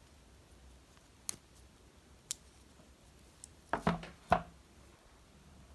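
Small metal clicks of a Leatherman Squirt PS4 mini multi-tool being handled, its tools opened and snapped shut: a few single sharp clicks, then a louder cluster of clicks and knocks about four seconds in.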